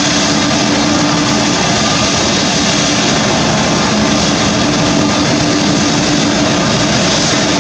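Airbus A380's four jet engines running with a steady, loud rush of noise and an even underlying hum.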